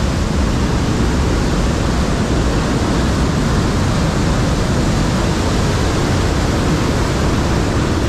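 Loud, steady rushing of the Seti River's whitewater churning through a narrow rock gorge.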